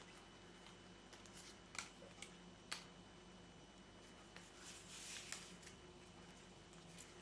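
Faint handling of paper and picture cards: a couple of sharp clicks in the first few seconds and a soft rustle about five seconds in, over a quiet steady hum.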